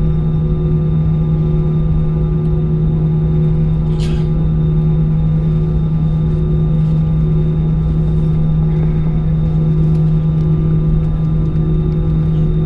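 Airbus A320 cabin drone while taxiing with the engines at idle: a steady low hum over rumble, with faint higher steady whines and no spool-up. A single short click comes about four seconds in.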